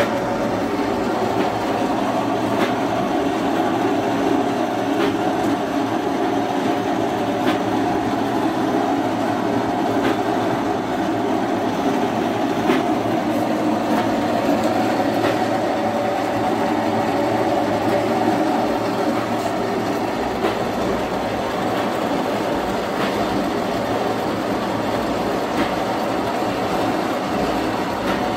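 Cotton candy machine running, its spinner head turning at speed to throw out melted coloured sugar as floss. It makes a steady, continuous hum with faint scattered clicks.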